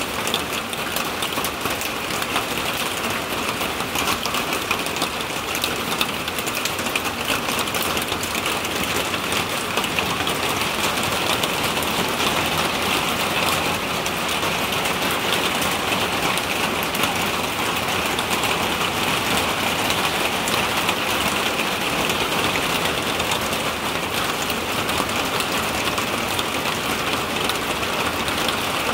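Heavy rain mixed with hail pelting a corrugated roof: a dense, steady clatter of countless small impacts.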